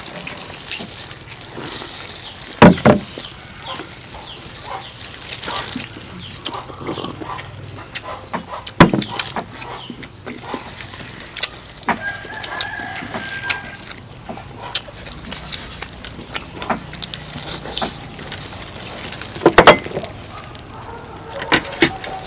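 A rooster crowing and clucking, with three loud sudden noises close by: about three seconds in, about nine seconds in, and near the end.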